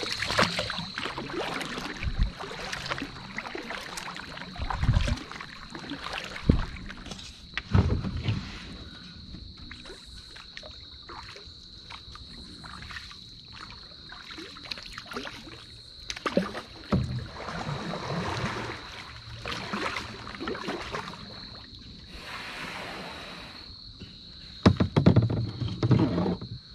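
A canoe being paddled: paddle strokes dipping and splashing, with knocks of the paddle against the hull, over a steady high-pitched hum. Near the end come louder knocks and scraping as the canoe pulls up against a sandy bank.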